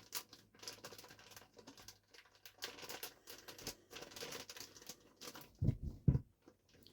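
Plastic mushroom grow bags crinkling and rustling as they are handled, with light pattering ticks of grain spawn and a couple of soft thumps near the end.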